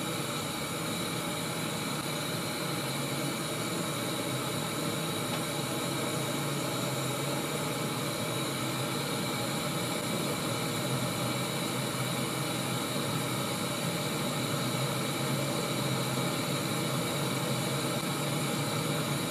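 Gas canister stove burning at a high flame under a stainless steel pot of water that is heating toward the boil: a steady, even rushing hiss.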